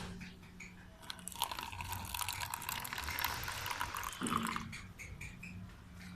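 Warm water poured into a glass holding a lump of alum. The pouring starts about a second in and stops near five seconds.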